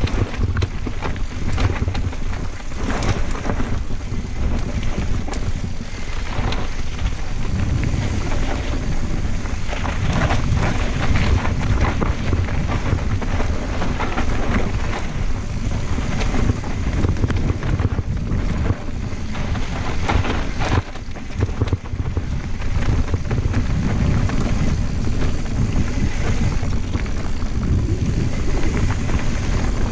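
Santa Cruz Blur cross-country mountain bike descending a dirt singletrack at speed: constant wind rumble on the camera's microphone, tyres on dirt, and many small knocks and rattles as the bike hits bumps.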